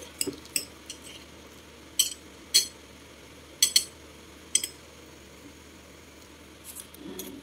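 Table knife clinking against a plate while slicing through a meatloaf: about seven short, sharp clinks at irregular intervals.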